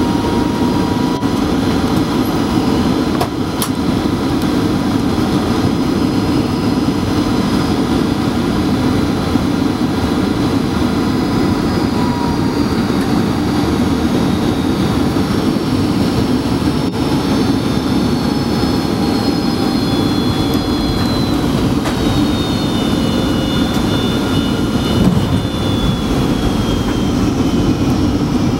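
Jet airliner cabin noise through landing: steady engine and airflow noise, with high whining engine tones that slowly fall in pitch over the second half as the plane rolls out on the runway.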